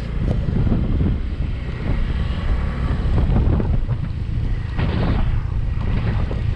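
Wind buffeting the microphone of a moving motorbike, with the running of the automatic Yamaha 125 cc's engine underneath, a few stronger gusts or jolts about five seconds in.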